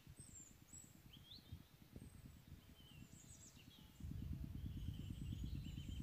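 Small birds chirping and calling in short whistles over a low, uneven wind rumble on the microphone, which grows louder about four seconds in.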